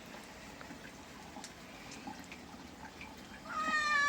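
Faint dripping and trickling of bath water with a few small drips, then near the end a cat gives one long meow.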